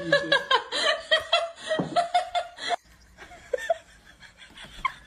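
A person laughing in quick repeated bursts, cutting off suddenly about three seconds in, followed by faint scattered small sounds.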